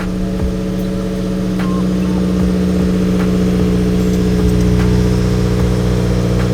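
Subaru WRX flat-four engine running steadily at idle, its level rising slightly a couple of seconds in, with faint regular clicks over it.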